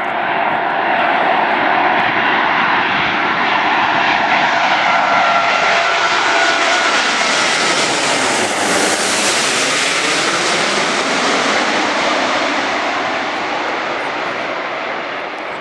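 Airbus A380 flying low overhead on its four jet engines: a steady whine with a rushing jet sound that builds as it approaches, is loudest and brightest as it passes directly overhead about halfway through, and eases slightly as it moves away.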